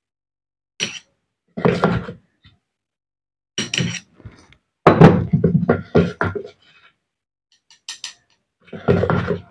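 Metal parts of an electric demolition breaker knocking and clattering as they are handled on a workbench: about half a dozen irregular thunks, the longest cluster about halfway through.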